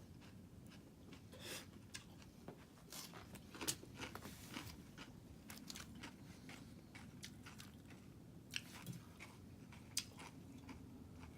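A person eating close to the microphone: scattered crisp bites and crunches with soft chewing between, faint, busiest a few seconds in.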